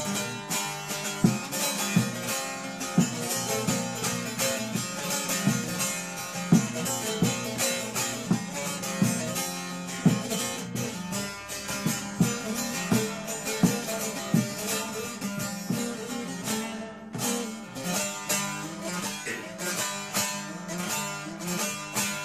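Instrumental break of a Turkish folk song, led by plucked string instruments playing a quick, steady run of notes without singing.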